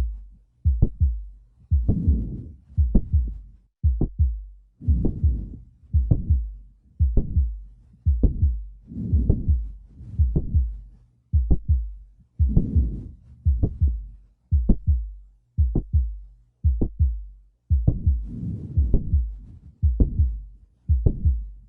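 Heart auscultation of mitral valve prolapse, beating about once a second. In each beat a sharp mid-to-late systolic click is followed by a late systolic murmur.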